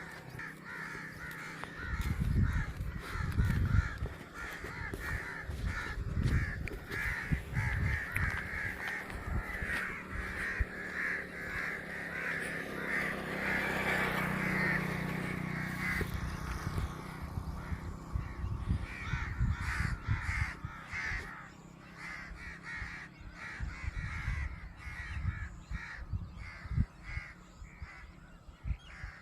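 Many birds calling continuously, a dense chorus of repeated calls, with low thumps scattered through it.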